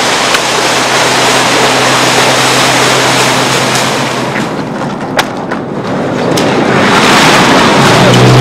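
Steady rushing noise that dips about halfway, with a few sharp clicks about five seconds in, then a motor vehicle's engine growing louder near the end.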